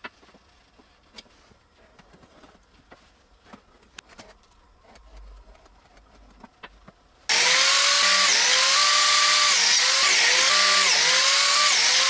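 A few faint taps and knocks, then about seven seconds in a biscuit joiner starts abruptly and runs loud. Its motor pitch rises and falls about once a second as it cuts biscuit slots in maple strips.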